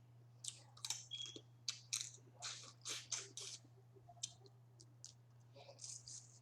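Close-up eating sounds of boiled crawfish: shells cracking and being peeled, with chewing and smacking. A quick run of crackles and clicks over the first few seconds, sparser later, over a steady low hum.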